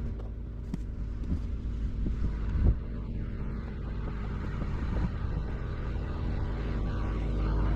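Mini excavator's diesel engine running steadily, with a single knock about two and a half seconds in.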